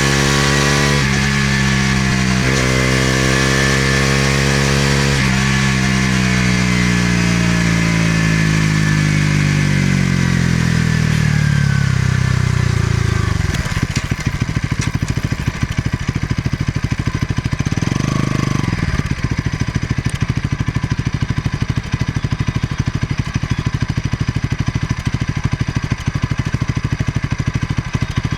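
Bajaj Pulsar NS200's single-cylinder engine and exhaust pulling through a few gear changes, then running down in pitch as the bike slows. It then settles into a steady, evenly pulsing idle, with one short throttle blip partway through.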